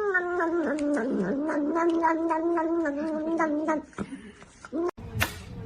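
A domestic cat yowling: one long drawn-out caterwaul that sags slightly in pitch and stops about four seconds in. A sharp knock follows near the end.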